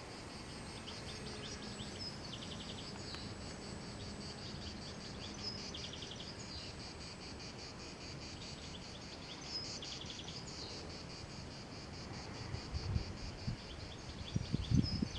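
Steady high-pitched chorus of insects, with short pulsed trills that come and go every few seconds. Low rumbles rise near the end.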